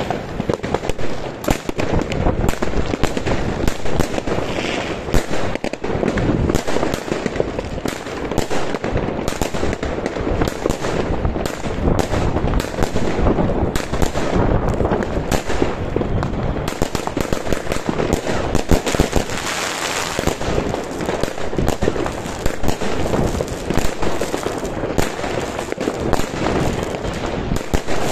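A 36-shot, 25 mm fireworks cake firing shot after shot: rapid launch thumps and shell bursts following each other closely with no pause.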